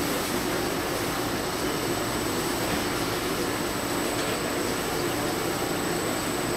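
Rosenthal Trivision roll-to-sheet trimmer and its belt delivery conveyor running, a steady even machine noise as a cut sheet of printed graphics is carried out on the belt.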